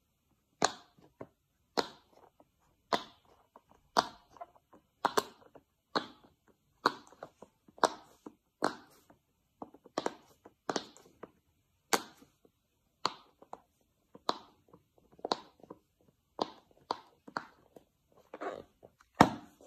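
Bubbles of a silicone pop-it fidget toy being pushed in one at a time by a finger, each a short sharp pop, about one a second, with a louder pop near the end.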